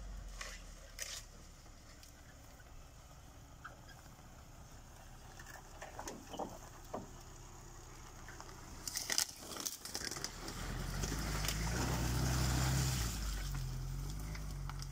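Off-road vehicle driving: a low engine with scattered knocks and thumps, the engine getting louder from about ten seconds in.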